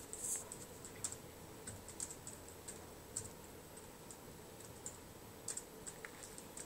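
Typing on a laptop keyboard: soft, irregular key clicks, a few per second, over a faint steady hum.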